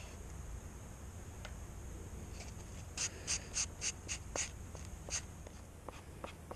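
A run of short, quick scratchy strokes, about four a second for roughly two seconds starting about three seconds in, then a few faint ticks: epoxy being worked by hand into a fabric layup on a plastic-bag surface.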